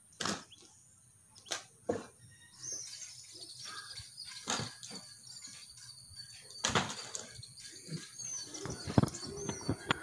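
Two roosters fighting: sudden wing flaps and scuffles come every second or two as they leap at each other. Small birds chirp faintly in the background.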